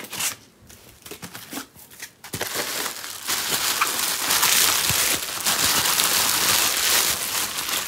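Plastic bubble wrap rustling and crinkling as it is pulled off a wrapped item by hand. It is faint for the first two seconds, then turns loud and continuous.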